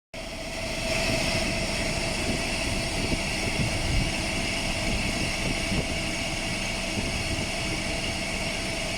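Large engine running steadily, with a constant whine over a deep rumble.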